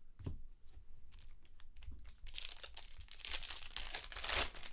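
Foil wrapper of a trading card pack crinkling and tearing as it is opened by hand, with scattered clicks at first, then dense crackling about halfway through.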